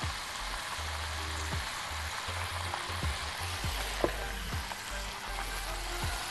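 Fat and ghee sizzling steadily in a hot wok after browning minced meat, with a few light clicks of a spoon against the pan.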